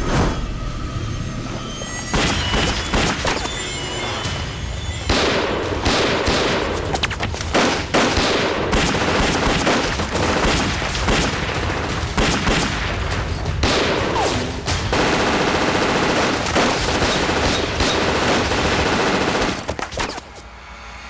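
Heavy gunfire in a pistol shootout, with many shots in quick succession. It stops near the end.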